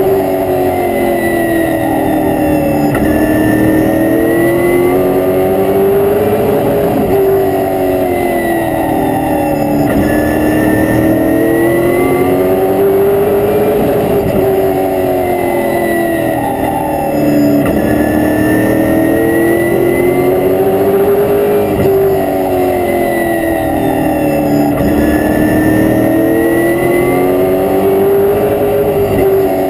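Race car's V8 engine heard from inside the cockpit, running hard while lapping a short oval. Its pitch rises and falls in a smooth repeating cycle about every seven seconds as the driver gets on and off the throttle, with a fainter whine rising and falling along with it.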